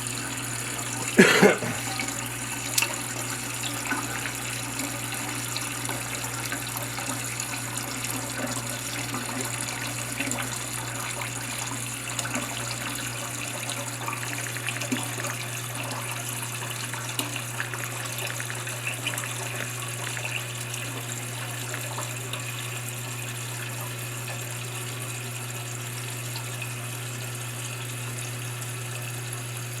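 Toilet tank filling through a newly installed Fluidmaster fill valve: a steady hiss and rush of water running into the tank. A short, louder noise comes about a second in.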